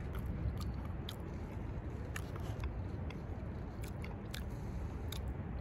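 A person chewing a bite of water-dipped cookie: irregular short wet clicks over a steady low background noise.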